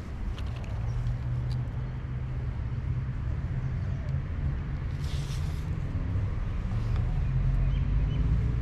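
Steady low rumble of wind buffeting the microphone, with a short rustle about five seconds in.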